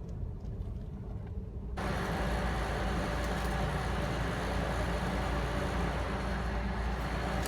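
Low steady vehicle rumble, like engine and road noise. About two seconds in, a louder, fuller noise of traffic comes in on top and keeps on.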